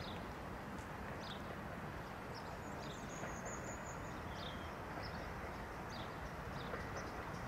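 Steady low outdoor rumble of a railway yard, with small birds chirping now and then and one brief high whistling call about three seconds in.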